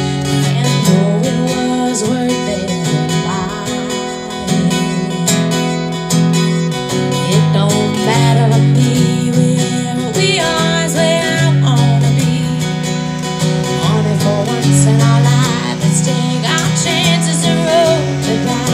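Live acoustic duo music: a steel-string acoustic-electric guitar strummed through a PA, with a singer's vocal lines coming in at times, mostly in the second half.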